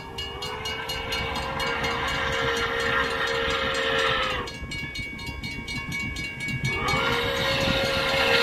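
Pere Marquette 1225, a 2-8-4 Berkshire steam locomotive, blowing its steam whistle: one long blast of about four seconds, a pause of about two seconds, then a second long blast starting near the end. The low rumble of the approaching locomotive runs underneath.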